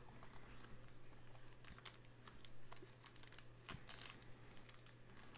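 Faint crinkling and tearing of a trading-card pack's wrapper as it is picked at and torn open by hand, in scattered small crackles, over a steady low hum.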